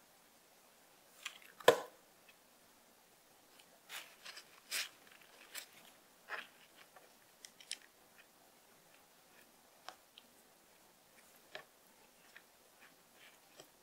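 Scattered small clicks and taps of a small black plastic bracket and a hobby servo being handled and fitted together on a cutting mat, with one sharper knock about two seconds in.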